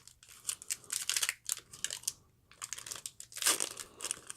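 Trading cards and a foil card-pack wrapper being handled: intermittent crinkling and rustling, louder near the end.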